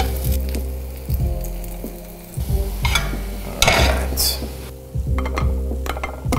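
Baguette slices frying in olive oil, sizzling, with clicks and scrapes as they are moved about. There is a louder scraping rush a little past halfway.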